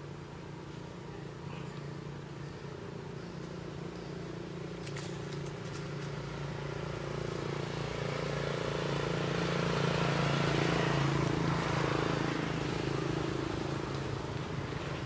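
A motor engine running steadily with a low hum. It grows louder to a peak about ten seconds in, then eases off.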